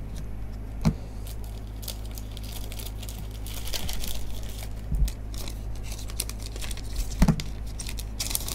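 Plastic card sleeves and rigid top loaders rustling and crinkling as a stack of sports cards is handled, with a few sharp plastic clicks about one, five and seven seconds in, over a steady low hum.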